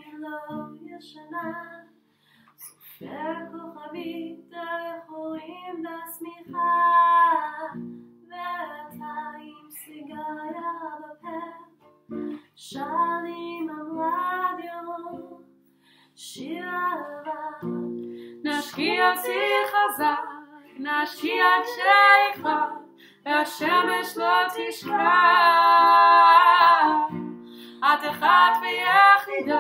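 A woman sings to an acoustic guitar that is strummed and plucked, phrase by phrase with short breaks. About two-thirds of the way through, the singing grows louder and fuller, with long held notes.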